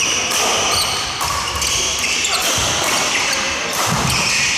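Indoor badminton play: shoes squeaking on the court floor and sharp knocks of rackets and footfalls, with voices carrying through the reverberant hall.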